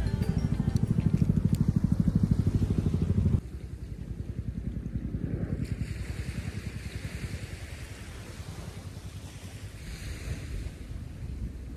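Gentle surf washing onto a sandy beach, with wind rumbling on the microphone. The rumble is loud at first and drops away abruptly about three seconds in, leaving the soft wash of the waves, which swells twice.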